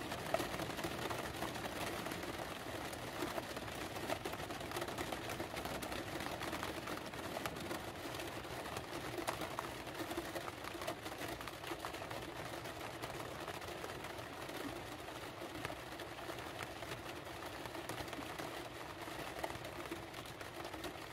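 Rain pattering on a campervan roof, heard from inside the van: a steady, even patter of many small drop taps.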